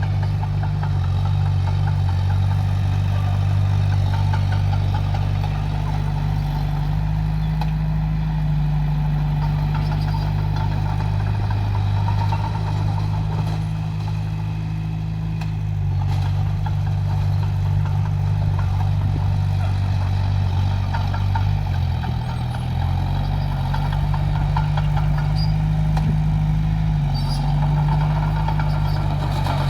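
Heavy diesel engine of earthmoving machinery running steadily, its note shifting up and down a few times, with a brief dip about two-thirds of the way through.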